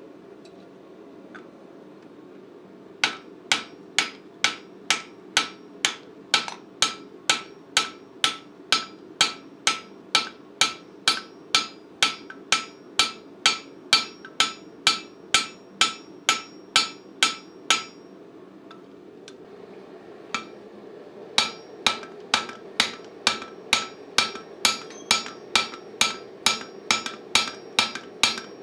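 Hand hammer striking the hot end of a bar held upright on the anvil to upset it: steady blows about two a second, each with a bright metallic ring. The blows stop for a few seconds near two-thirds through, then start again.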